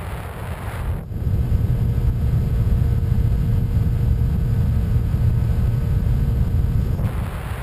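Wind rushing over the onboard camera microphone of a Skywalker 1900 FPV plane in flight. About a second in it turns abruptly into a louder, low, buffeting rumble, which drops back to a lighter hiss near the end.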